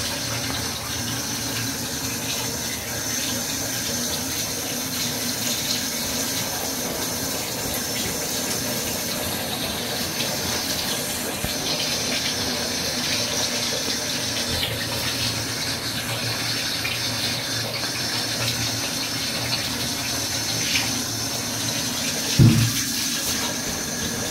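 Tap water running steadily into a bathtub, with a dull knock near the end.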